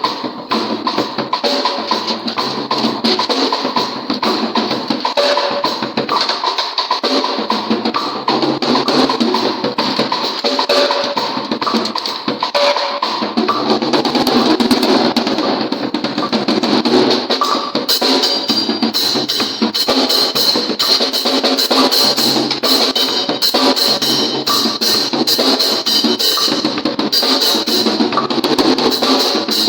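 Pearl drum kit played continuously, with bass drum and snare strokes in a steady groove. The sound gets brighter about halfway through.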